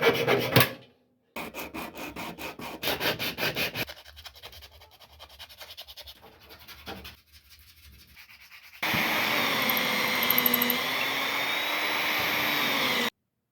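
A wood rasp or file shaping a wooden hand-plane handle: rapid back-and-forth rasping strokes in short bursts, some loud and some softer. About nine seconds in this gives way to a loud steady whirring noise with wavering tones that cuts off suddenly.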